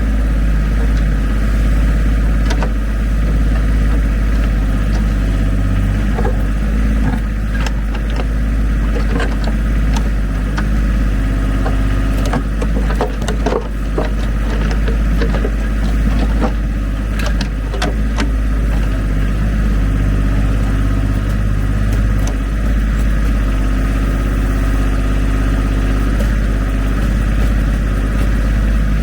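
Ford 1520 tractor's three-cylinder diesel engine running steadily while its backhoe digs, with scattered knocks and scrapes from the bucket working through dirt and rock.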